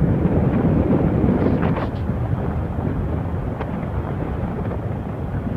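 Steady low rumble of jet aircraft engines.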